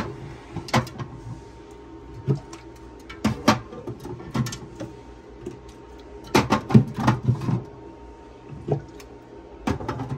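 Aluminium drink cans clinking and knocking as they are set onto and slid along a glass refrigerator shelf, in scattered bunches of knocks, busiest from about six to seven and a half seconds in. A steady low hum runs underneath.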